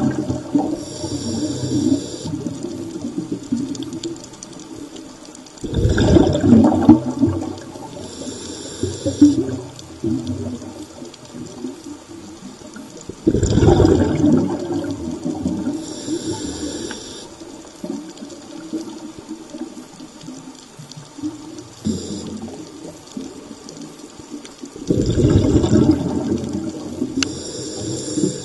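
Scuba diver breathing through a regulator underwater: a high hiss on each inhale, then a loud rush of exhaled bubbles, repeating about every seven to eight seconds, with three bubble bursts and four inhales.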